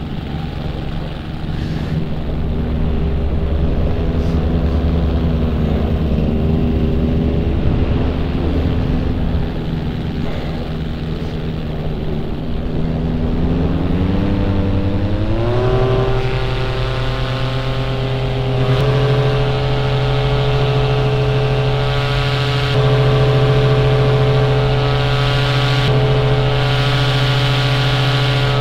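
Paramotor engine and propeller running steadily, then throttled up about halfway through: the pitch climbs over a few seconds, steps up again shortly after and holds at the higher power, as for a climb to more altitude.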